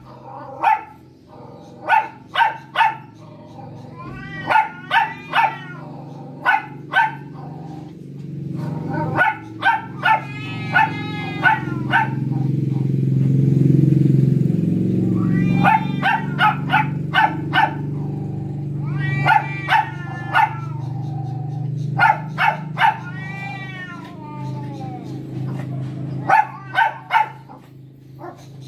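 Animal calls: quick runs of short, high yelps, three to six at a time, with a few longer wavering cries mixed in. A low rumble swells and fades midway.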